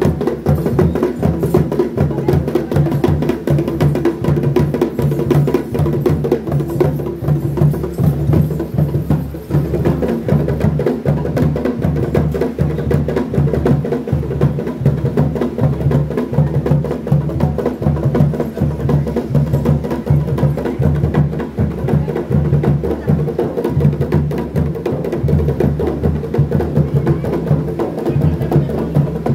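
Dhol drum beaten in a steady, continuous rhythm.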